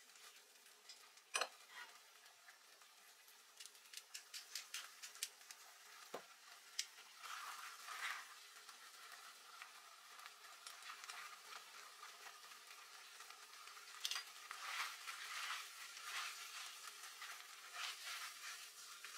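Spaghetti being tossed with tongs in a simmering pot of white-wine clam sauce: a soft wet sizzle with scattered clicks of the tongs against the enamelled pot, the sharpest about a second and a half in.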